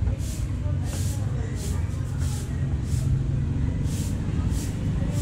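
A soft grass broom sweeping a concrete floor in regular swishing strokes, about one and a half a second, with the dustpan held alongside. A steady low rumble runs underneath.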